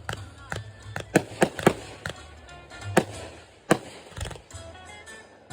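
Fireworks going off: an irregular string of sharp pops and bangs, about eight in the first four seconds, then thinning out, with music playing underneath.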